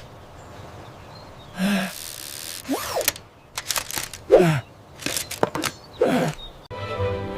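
Animated sound effects: short swishes and clicks, with three brief vocal exclamations falling in pitch. Background music starts near the end.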